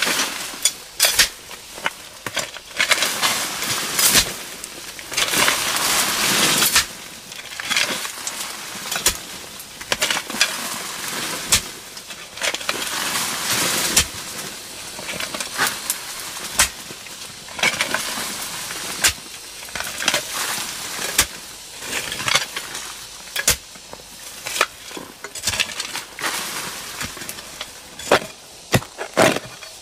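Repeated irregular strikes of a long-handled digging tool chopping into soil and roots, with scraping and rustling of earth and dry leaves between the blows.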